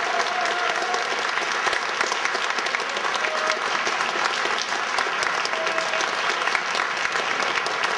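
Concert audience applauding, dense and steady clapping after a brass band piece.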